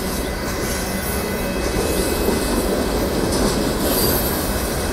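Union Pacific freight train of boxcars rolling past at a grade crossing: a steady rumble and clatter of wheels on rail, with some wheel squeal in the middle.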